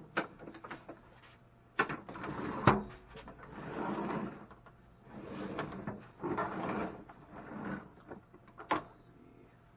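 Hands-on handling noises: several sharp knocks and clicks with stretches of scraping and rustling between them, the loudest knock a little under three seconds in.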